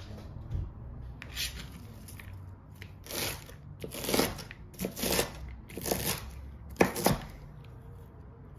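Chef's knife slicing through shredded red cabbage on a cutting board: about six cuts, roughly one a second, the loudest near the end.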